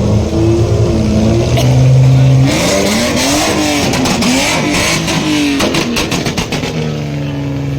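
Car engines running steadily, then revved hard, the pitch climbing and falling repeatedly from about a third of the way in, with a hiss over it. A quick run of sharp pops comes a little past the middle.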